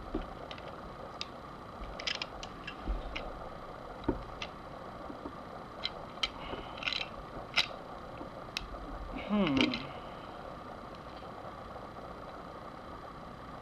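Light metallic clicks and clinks of a small tubing cutter being loosened and turned around a steel shotgun barrel, scattered irregularly. About nine and a half seconds in comes a louder brief falling squeak.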